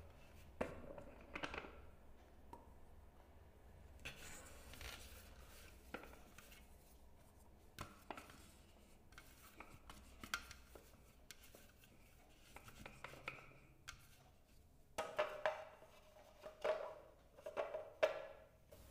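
Faint handling sounds from a Preethi Zodiac mixer grinder's clear plastic food-processor bowl: scattered small clicks and rubs as grated carrot is scooped out. A run of louder plastic knocks comes in the last few seconds as the lid and pusher are fitted. The motor is not running.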